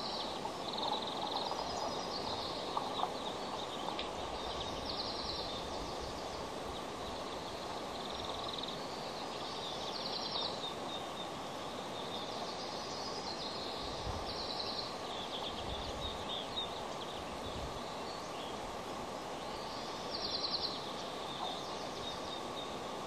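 A bird calling in short, high trills that repeat every few seconds, over a steady hiss of outdoor background noise, with a few low thuds partway through.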